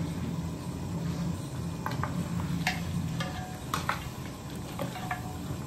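Long metal ladle stirring freshly added chilli and coriander powder into mutton curry in a large aluminium pot, with several short scrapes and clinks against the pot, over a steady low hum.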